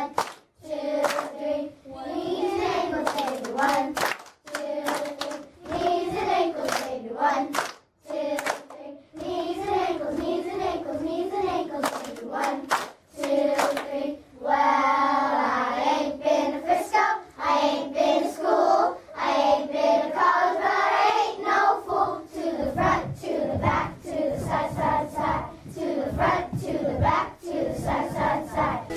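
A group of children singing together in a small room, clapping their hands along with the song.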